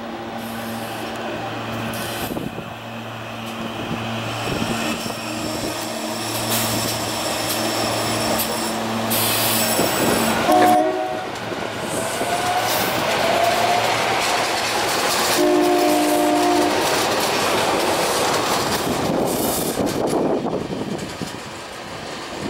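SEPTA Rotem Silverliner V electric multiple-unit train passing along the platform, with a steady motor hum and rail and wheel noise that builds as it goes by. Its horn sounds twice, a short chord about ten seconds in and a longer one about fifteen seconds in, between which a rising whine is heard.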